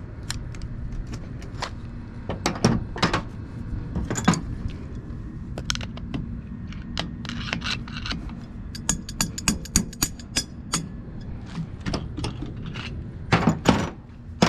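Metal parts knocking, clinking and scraping as the crankshaft is worked out of a Copeland semi-hermetic compressor's crankcase through the piston bore: irregular sharp knocks that come quicker in the second half, with two loud knocks near the end.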